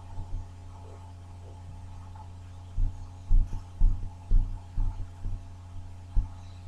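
Dull low thumps, about two a second for around three seconds, over a steady low hum.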